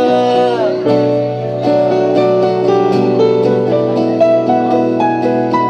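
Live song: a voice holds the last sung word and lets it fall away about a second in, then plucked strings and piano carry on with an instrumental passage.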